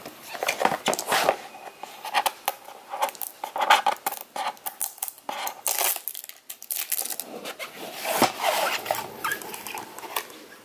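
Cardboard box being handled and opened by hand: irregular scraping, sliding and tapping of the lid against the sides, with a short pause about six seconds in.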